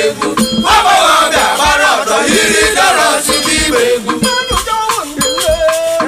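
Music: voices singing over shaken rattles and a steady drum beat.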